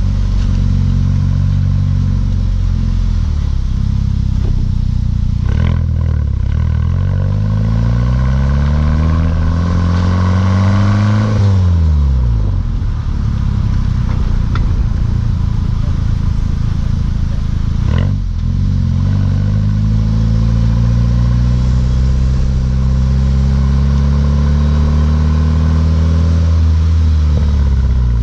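Mk6 Volkswagen GTI's turbocharged 2.0-litre four-cylinder engine through a Beluga aftermarket exhaust, pulling under acceleration. The revs climb for several seconds and drop sharply about twelve seconds in. They then climb slowly again for about fifteen seconds and fall near the end. There are brief sharp clicks about six and eighteen seconds in.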